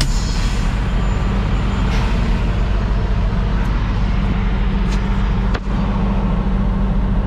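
Garbage truck's diesel engine idling steadily, heard from inside the cab, with a brief air hiss at the start and a couple of knocks near the end.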